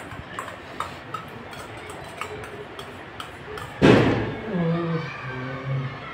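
Spoon clinking and scraping lightly in a stainless steel bowl as filling is worked, with a louder clatter about four seconds in. After it a low voice sounds a few short notes.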